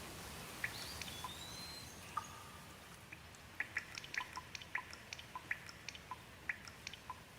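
Steady light rain with many close water drops dripping in irregular, pitched plinks, thicker in the second half. A brief sliding whistle sounds about a second in.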